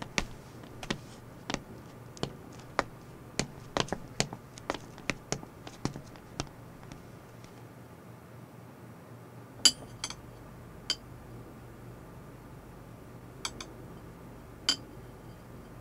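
Cutlery and glasses clinking against china plates during a meal: a run of light clinks for the first several seconds, then a few scattered ones.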